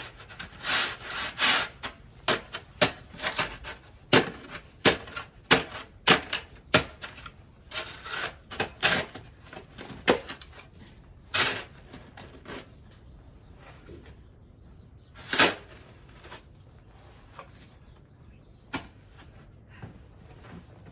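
Snow crunching and scraping as it is trodden and pushed aside, in a quick irregular run of crunches for about the first twelve seconds, then only a few scattered ones.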